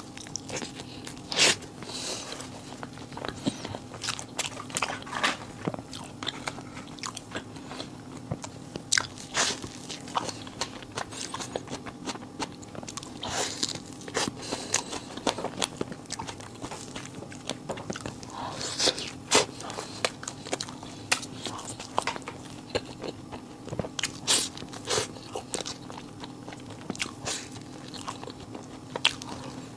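Close-up eating sounds: irregular crisp bites and crunches with chewing, dubbed in afterward as sound effects. A steady low hum runs underneath.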